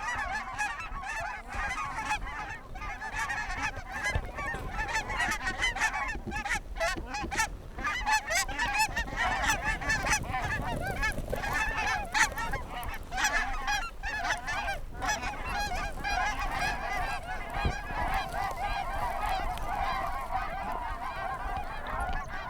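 A flock of geese honking, many calls overlapping in a continuous clamour as the birds circle over the decoys.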